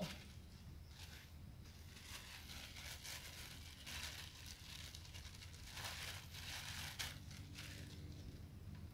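Irregular soft rustling and crinkling from a dark bag being handled, louder a few times near the middle, over a low steady hum.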